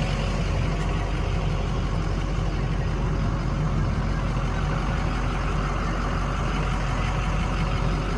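Ford 6.0 Power Stroke turbo-diesel V8 idling steadily.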